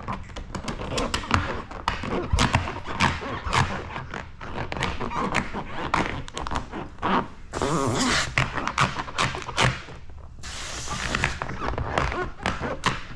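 Wet clear paint protection film being peeled back off a car's painted rear hatch, giving a run of irregular crackles and pops. There are two longer hissing stretches, one a little past the middle and one near the end.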